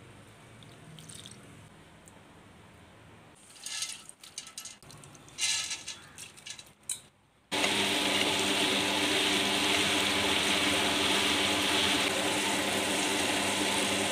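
Soaked rice rustling and splashing in its water as it is handled. About halfway, a tabletop wet grinder cuts in and runs loud and steady, a motor hum with steady tones, its stone rollers grinding soaked parboiled rice into batter.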